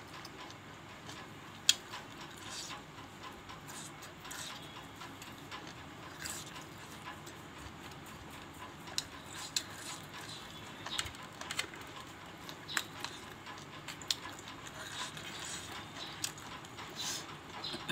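Close-up eating sounds of a person eating by hand: chewing and mouth sounds with many small scattered clicks, one sharper click about two seconds in.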